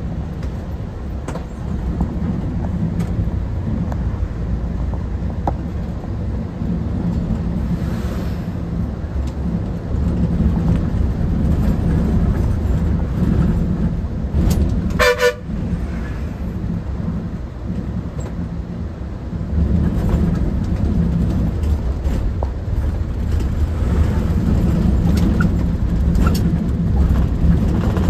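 Bus engine running with a steady low rumble. A vehicle horn sounds briefly about halfway through.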